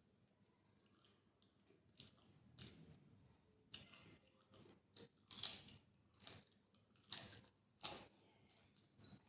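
A person chewing sweets close to the microphone, with wet lip smacks and mouth clicks in an irregular run that starts about two seconds in.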